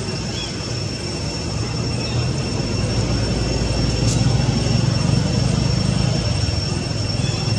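A distant engine rumble that swells and stays louder through the second half, over a steady high insect drone, with one brief sharp click about four seconds in.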